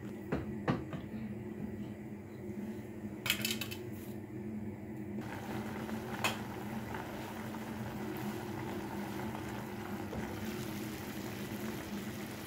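Beef and bean stew simmering in a pan under a glass lid, with a soft steady bubbling that grows fuller from about five seconds in. Clinks of the spatula and lid against the pan come in the first few seconds, over a steady low hum.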